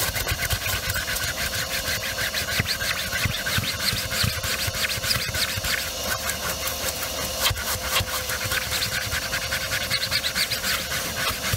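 Vacuum cleaner running steadily while its narrow crevice nozzle is scrubbed back and forth over a car's cloth seat cushion, giving a rapid scratchy rasp of plastic on fabric over the motor's steady hum and suction hiss.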